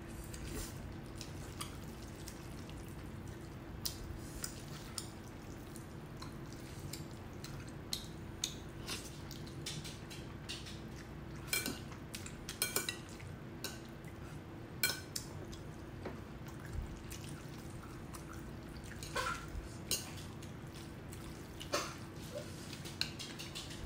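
Close-up eating sounds of saucy black bean noodles: scattered wet smacks and slurps, with metal chopsticks clicking against a ceramic bowl, over a faint steady hum.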